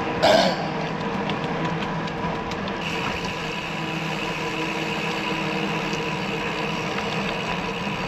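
Running noise of a ride along the road: a steady mechanical whine over a rushing haze of tyre and wind noise. There is a short loud knock or clatter about a third of a second in, and a higher-pitched whine joins about three seconds in.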